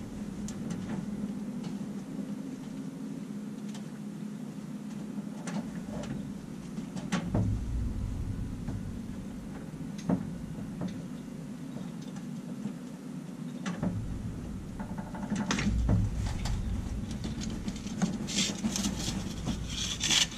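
Scattered light clicks, taps and rubbing as old MSD spark plug wires and their boots are worked loose and pulled off the plugs by hand, with a quicker run of clicks near the end. A steady low hum runs underneath.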